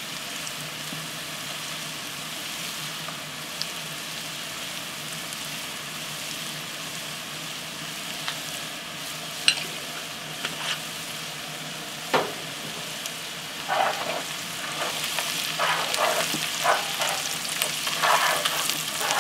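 Diced onions frying in lard in a cast-iron Dutch oven, a steady sizzle. From about two-thirds of the way in, a wooden spoon scrapes and knocks against the pot as the onions are stirred, and the sizzle gets louder.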